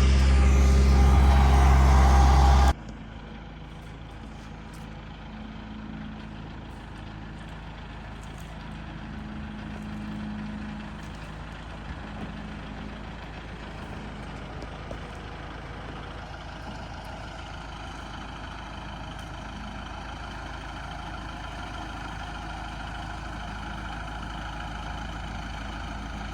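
Motor vehicle engine running: loud for about the first three seconds, then an abrupt cut to a quieter, steady engine hum that carries on.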